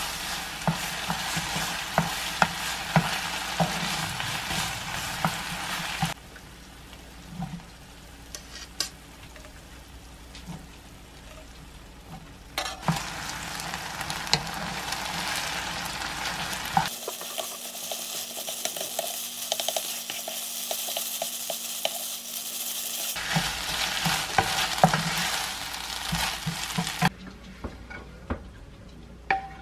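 Pasta sauce with onions sizzling in a frying pan while a spatula stirs and tosses it, the spatula clicking and scraping against the pan as spaghetti is mixed in. The sizzle comes and goes in stretches and stops near the end, leaving a few light clinks.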